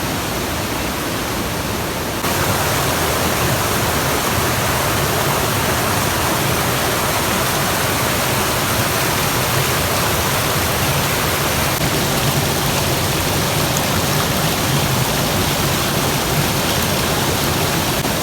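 Waterfall rushing steadily, stepping up a little louder about two seconds in.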